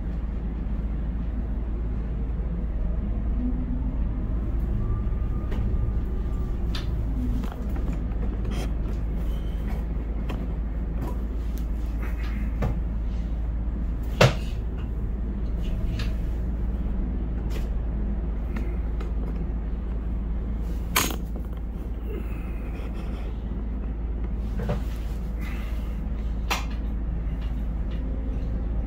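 Container crane operator's cab with steady machinery hum from the crane drives as the crane moves. Scattered clicks and knocks run through it, with two sharper clacks in the middle.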